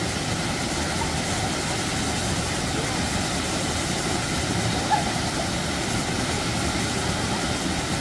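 Steady rushing roar of a waterfall about 6 m high pouring into a deep plunge pool.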